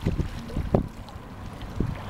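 Wind buffeting the microphone in irregular low rumbling gusts over choppy sea water, with the small radio-controlled line-towing boat riding the waves.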